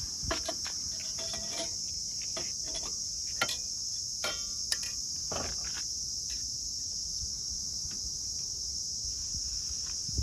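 Crickets chirping steadily in a high, even drone, with a few short clicks and knocks scattered through it.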